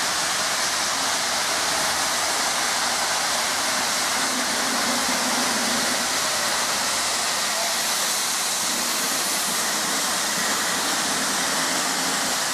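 A steady, loud rushing hiss that cuts off suddenly at the very end.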